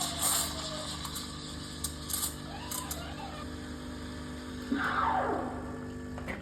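Ferratti Ferro 3145 espresso machine's pump humming steadily while it brews, stopping right at the end, with a few light clicks and a short falling sound about five seconds in.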